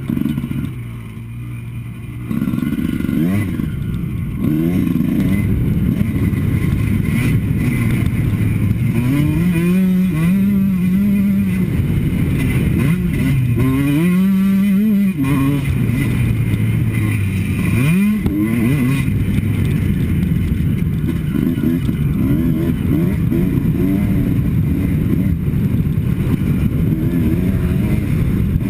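Two-stroke motocross bike engine being ridden hard, its pitch climbing and dropping again and again as the throttle is opened and rolled off. It is quieter for the first couple of seconds, then loud for the rest.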